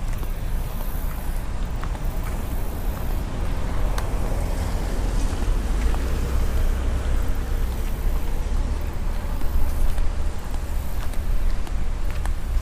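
Road vehicle driving: a steady low rumble of engine and road noise.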